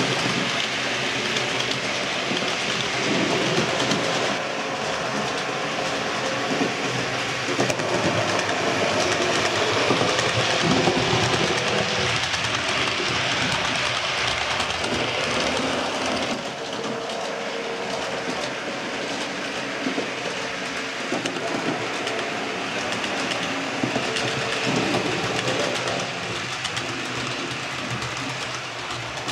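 H0-scale model passenger train of Corail coaches rolling along the layout track: a steady rattle with many small clicks of wheels on rails, changing in character with each cut between shots.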